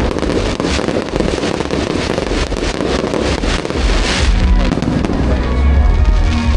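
Aerial fireworks bursting in quick succession: rapid crackling cracks over deep booms, with music playing underneath.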